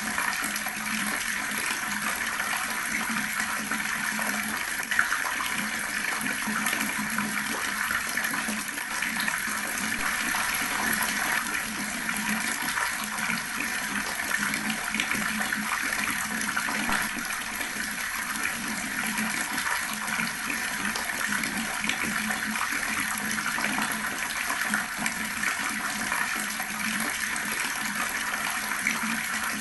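Water running steadily from a tap and splashing into a basin below, a continuous even rush with small splashy spikes.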